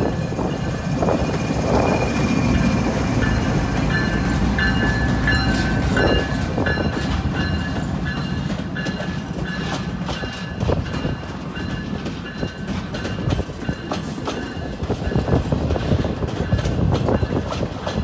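Union Pacific diesel freight locomotives rumbling past, followed by empty flatcars rolling by. A thin high squeal comes from the wheels around the middle, and in the second half the wheels click and clank over the rail joints.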